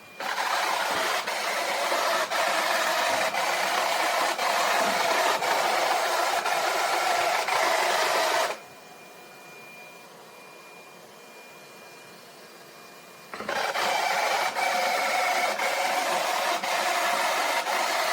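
Vacuum cleaner motor running loudly with a faint tick about once a second. It cuts out about halfway through, leaving a faint steady whine, then starts up again abruptly.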